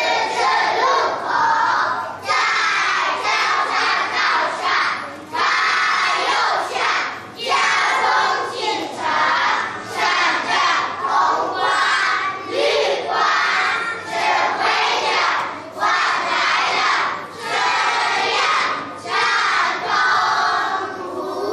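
A large group of young children reciting a poem in unison in Mandarin (choral speaking), phrase by phrase with short pauses between the lines.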